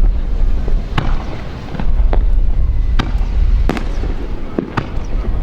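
Aerial fireworks display: shells bursting in a string of sharp bangs, about seven over five seconds, some close together, over a continuous low rumble.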